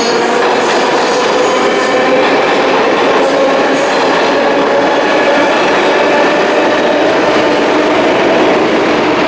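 New York City subway train running through the station, heard on the platform: a loud, steady rumble of wheels on rail. Thin high squeals fade after about two seconds, and a whine slowly rises in pitch throughout.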